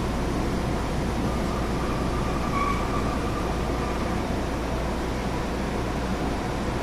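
Steady running noise heard inside a Tobu 30000 series electric train: wheels rumbling on the rails. A faint whine swells up and fades between about one and four seconds in.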